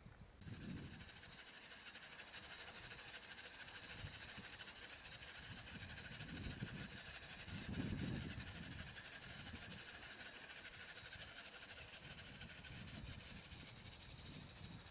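1/10-scale HSP Pangolin RC rock crawler's electric motor and gears running with a steady high whine and rattle as it drives. It starts suddenly about half a second in, with soft low rumbles now and then beneath it.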